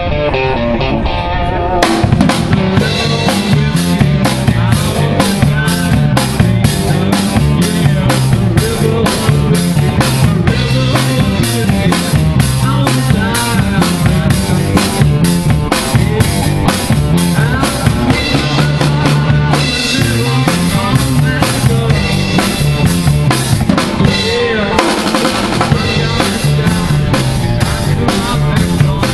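Live electric blues band playing: electric guitar, electric bass and a full drum kit. The drum kit comes in about two seconds in, and the band keeps a steady beat with a short break near the end.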